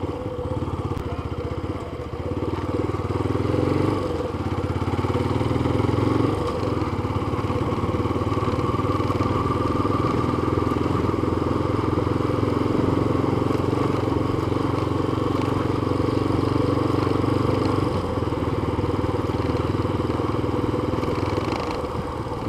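Yamaha FZ25 motorcycle's single-cylinder engine running steadily while ridden slowly through town streets. It picks up a little a few seconds in and eases off near the end.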